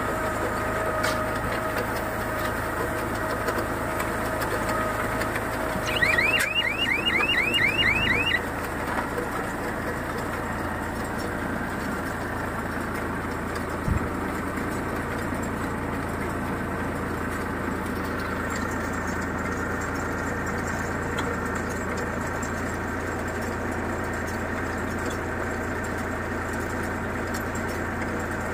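Redlands scaleless baler running steadily, its drive giving a low, even hum while the twine-wrapping guide travels along its shaft. About six seconds in comes a quick run of about ten short rising chirps lasting a couple of seconds, and there is a single low knock about halfway through.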